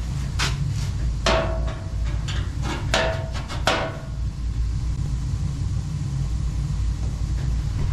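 Steady low rumble of a Slant/Fin Galaxy gas-fired steam boiler running. Five sharp knocks with a brief ringing tone fall in the first four seconds.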